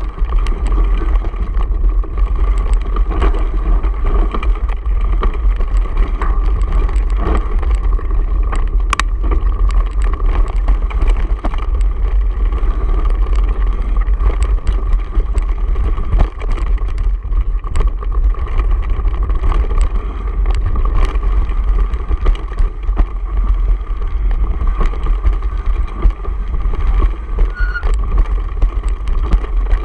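Wind buffeting a mountain biker's action-camera microphone during a descent over a rocky trail, a loud steady rumble, with frequent rattles and knocks from the bike and mount jolting over the stones.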